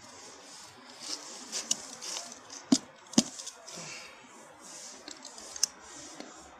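Handling noise from work: light rustling and scraping, with two sharp clicks or knocks close together near the middle and a third near the end.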